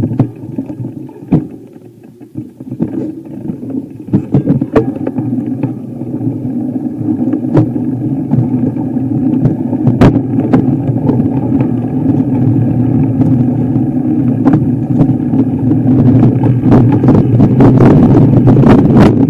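Motor vehicle engine running while driving over rough ground, its drone growing steadily louder, with scattered knocks and rattles.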